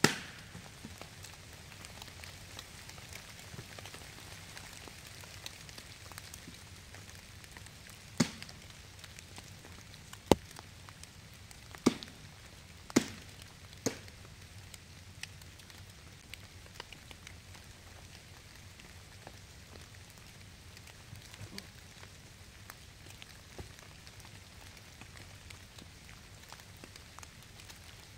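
Steady rain falling through the forest, with about half a dozen sharp, irregularly spaced knocks, most of them bunched in the middle.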